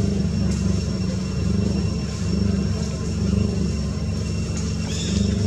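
Steady low engine rumble, as of motor traffic, with a few short high chirps near the end.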